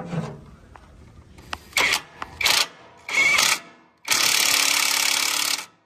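A tool running nuts onto a tractor's seat frame: three short mechanical bursts, then one steady run of about a second and a half that cuts off sharply.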